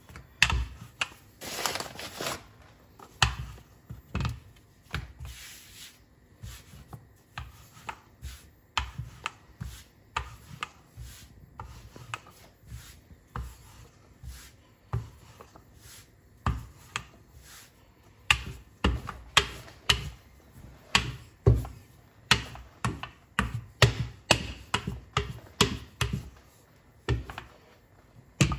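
Irregular knocks and taps on a kitchen work surface, about one or two a second, with a few short rubbing scrapes near the start, as bun dough is shaped and thinned at the edges.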